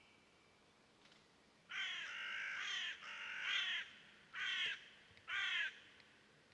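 A bird calling four times, the first two calls longer and run almost together, the last two short.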